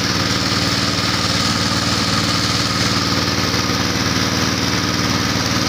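Small boat engine running steadily at an even speed, with a fast regular pulse.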